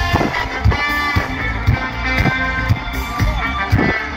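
Live pop-rock band playing an instrumental passage: strummed guitars over a steady drum beat at about two hits a second.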